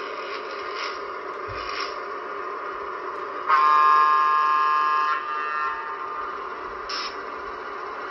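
HO scale Broadway Limited P5a boxcab's DCC sound decoder playing a steady electric-locomotive running sound through the model's small speaker, with one loud multi-note horn blast about three and a half seconds in lasting about a second and a half. A few brief high squeaks come before and after the horn.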